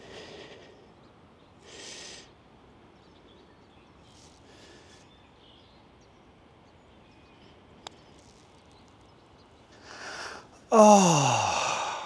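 A golfer's putt: a few breaths near the microphone, a single sharp click of the putter striking the ball about eight seconds in, then a long groaning 'ohhh' falling in pitch as the putt just misses the hole.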